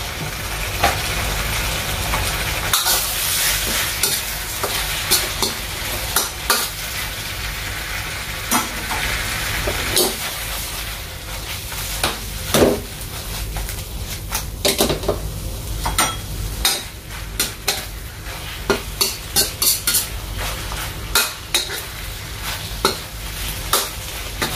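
Stir-fry of chicken and vegetables sizzling in a hot wok while a metal ladle stirs it. Short clicks and knocks of the ladle against the wok break through the steady sizzle, coming more often in the second half.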